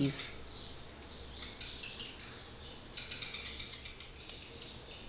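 A parent songbird at its nest giving angry alarm calls at an intruder: short, high chirps repeated at irregular intervals.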